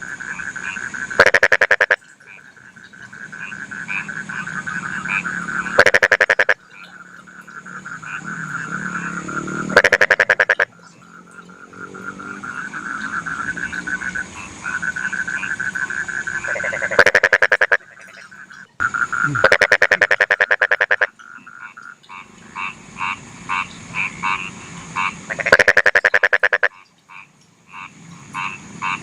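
Rice-field frogs calling in a chorus: a steady trilling chorus underneath, broken every few seconds by a loud, rapid rattling croak about a second long, six times in all.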